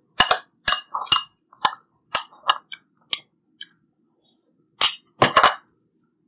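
Chopsticks clinking against ceramic bowls and plates during a meal: a quick run of sharp clinks over the first three seconds, then a short cluster of three or four a little before the end.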